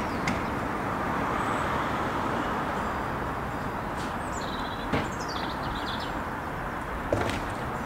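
Steady outdoor background noise, with a small bird chirping a short run of notes about four seconds in and two faint knocks.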